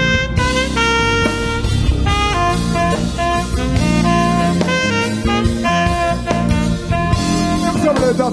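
Saxophone playing a melody of held notes over a live band with drum kit, sliding down in pitch near the end.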